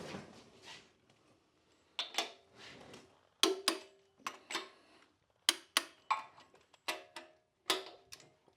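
A series of sharp metallic clicks, mostly in pairs a fraction of a second apart, each with a short ring, with near silence between them.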